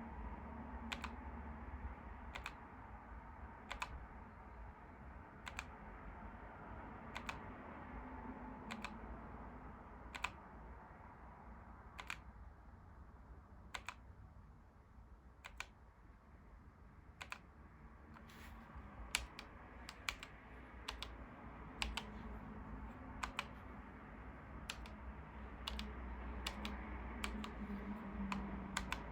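Keys being pressed one at a time on a Keychron K1 low-profile mechanical keyboard, each press a short sharp click. The clicks come about once a second at first and more often in the second half.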